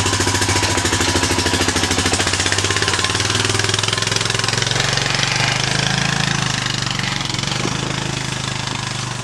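Four-wheeler (ATV) engine running just after starting, with a fast, even putter. It rises a little in pitch in the middle and fades gradually toward the end.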